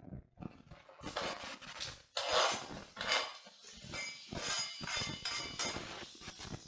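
Thinly sliced courgettes frying in olive oil in a pan, sizzling in uneven surges as slices are tipped in and moved about, with clinks and scrapes of a utensil against the pan.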